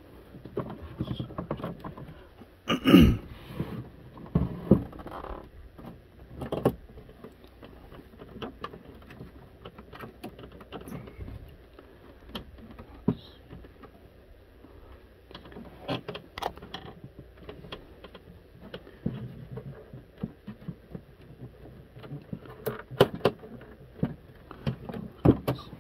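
Hands gripping, pressing and prying at the plastic case of a Radio Shack TRS-80 Model 4P computer: scattered clicks, knocks and rubbing of plastic, with a louder thump about three seconds in.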